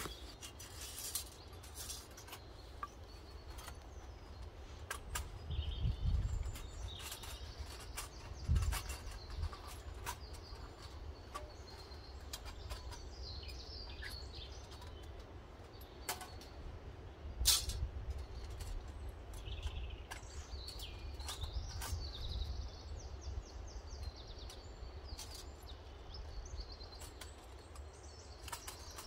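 Small woodland birds chirping and trilling off and on, with scattered sharp clicks and knocks as a small folding metal camp stove is unfolded and set down on a stone; the loudest click comes a little past halfway.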